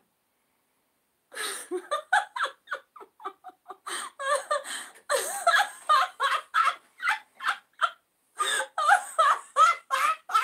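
Sound-effect recording of a person laughing: a quick run of short ha-ha bursts that starts about a second in, with a brief pause near eight seconds before the laughing picks up again.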